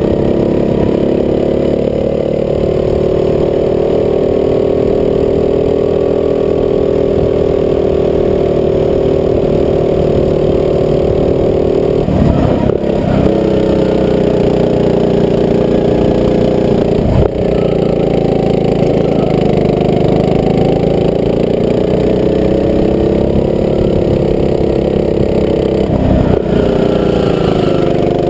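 Rental go-kart's small engine running steadily at speed, its pitch dipping and rising gently a few times. A few brief knocks cut across it around the middle and near the end.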